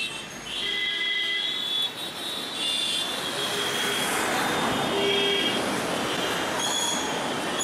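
Busy traffic noise: a steady rush of vehicles, with short high-pitched tones such as horns or squeals coming and going.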